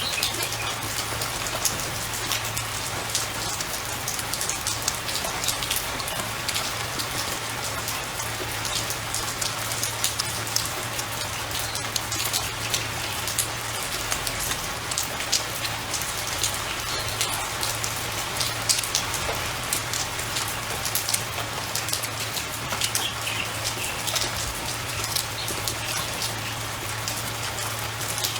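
Steady rain falling outside, an even hiss of drops with many small ticks, over a steady low hum.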